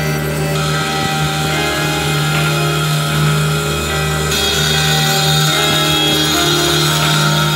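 Background music with sustained chords that change twice.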